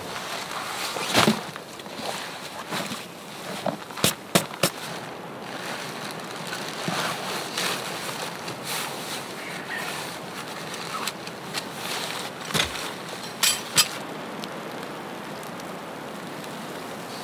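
A hiking backpack being taken off and handled on the snow: rustling of the pack and a handful of sharp clicks, with a quick run of three about four seconds in and a few more near the end, over a steady rushing background.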